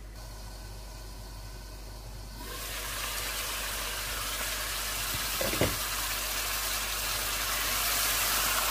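Chicken curry with onions and green peppers sizzling in a pan over high heat, muffled under a glass lid at first. About two and a half seconds in the lid comes off and the sizzling becomes much louder, with a single clink a few seconds later.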